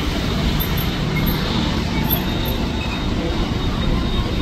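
Steady road traffic noise: a low rumble of vehicle engines.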